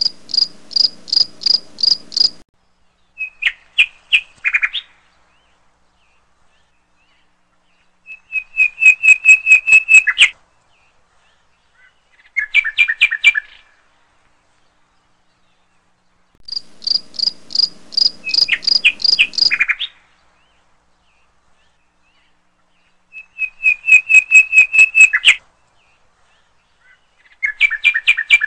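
High chirping trills in short phrases of rapid notes, each lasting one to three seconds with silent gaps between; some phrases sit high and steady, others start lower and step down in pitch at the end. The sequence of phrases repeats about every sixteen seconds, like a looped recording.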